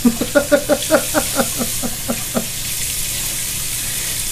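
Tap running into a bathroom sink. Over it, for the first two seconds or so, a man lets out a quick string of short voiced 'ha' sounds, about five a second.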